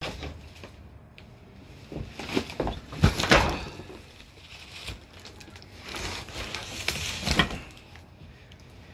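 Large cardboard shipping box being handled: rustling, scraping and thumps in two bursts, the second as it is laid flat on a table.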